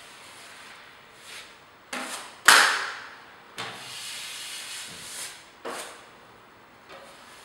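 Steel drywall taping knife scraping base compound along a plasterboard corner bead in a series of strokes. The loudest begins with a sharp slap about two and a half seconds in, and a longer smooth stroke follows.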